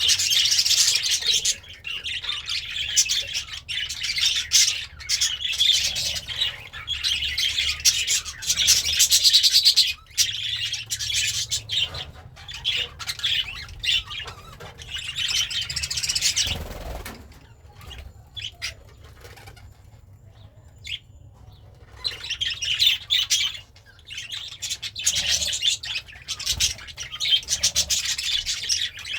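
Budgerigar chattering and warbling in a dense run of quick chirps, easing off for a few seconds a little past the middle before starting up again.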